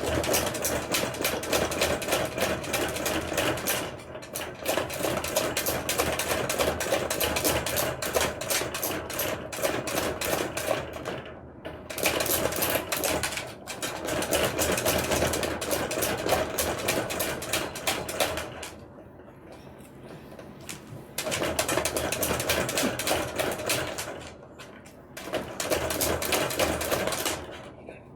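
Rapid rattling of a wire dog cage as a miniature dachshund shakes and scratches at it, trying to get out. It comes in several bursts of a few seconds each, with short breaks between them.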